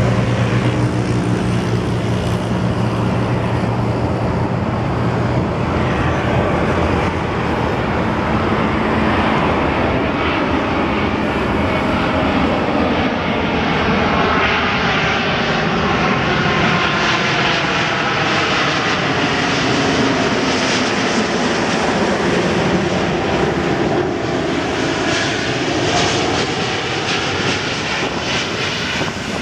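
Jet engines of a Boeing 777 airliner on final approach, growing closer: a loud, steady rushing jet noise with whining tones that slowly glide in pitch as it nears. A steady low hum sits under it for the first five seconds or so.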